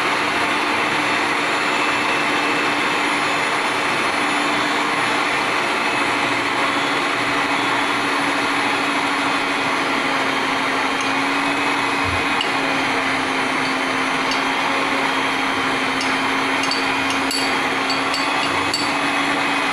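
Electric hand mixer on its stand running steadily at a constant speed, its beaters whipping egg-and-sugar sponge cake batter in a plastic bowl, with an even motor hum. A few light clicks come near the end.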